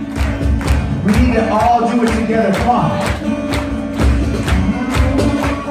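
Live acoustic rock performance: a male voice singing over strummed acoustic guitar with a steady beat, recorded from within the audience.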